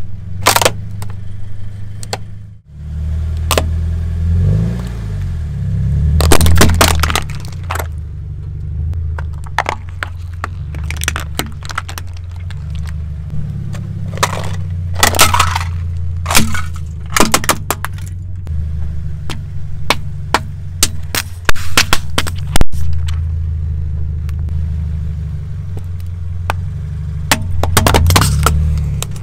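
A car's tyre rolling over toys and plastic containers, crushing them in a run of sharp cracks and crunches of breaking plastic, over the car's low engine rumble.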